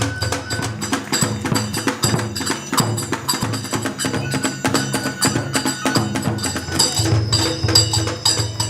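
Background music with a fast, dense percussion beat of many sharp wooden-sounding strikes.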